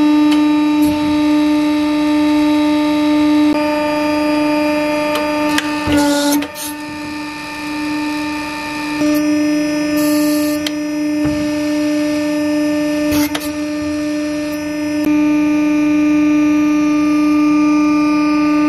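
Hydraulic power pack running: electric motor and pump with a steady, loud whine. A few sharp metallic clicks come about six seconds in and again around thirteen seconds, with a brief drop and wobble in the tone at the first, as the foot pedal works the press's control valve.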